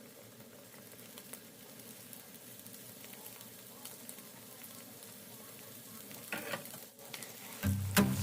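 Food sizzling faintly in a frying pan, with a few light utensil knocks near the end.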